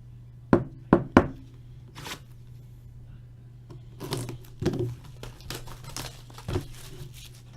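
Plastic wrapping on a box of hockey cards being torn and crinkled open: a few sharp rips in the first second or so, then more crackling rustles in the latter half, over a steady low hum.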